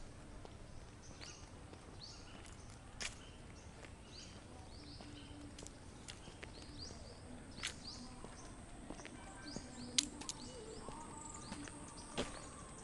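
Small birds chirping: many short, quick, falling high chirps over a low outdoor background, with a few sharp ticks, the loudest about ten seconds in.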